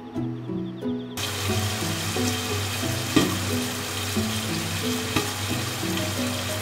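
Pacific saury sizzling in a lidded frying pan on the stove: a steady frying hiss with scattered crackles and one sharp pop, starting about a second in, over soft melodic background music.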